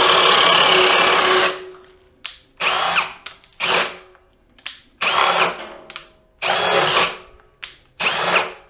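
Ridgid Max Output cordless hammer drill in speed 2 boring a 1.5-inch spade bit into a 4x4. One long run of about two seconds, then five short bursts, each rising in pitch as the motor spins up and then stopping. It cannot push the bit through in speed 2.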